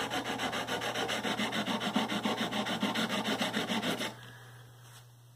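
180-grit sandpaper on a wooden sanding block rubbed in quick back-and-forth strokes over the metal frets of a Fender Stratocaster neck, about five strokes a second, stopping about four seconds in. It is fret levelling: grinding down high frets that cause buzzing and fretting out.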